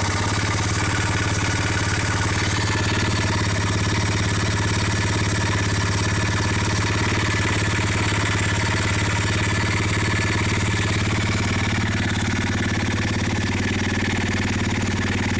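ABM Raptor 250 motorcycle engine running steadily at idle with a knock from inside the engine.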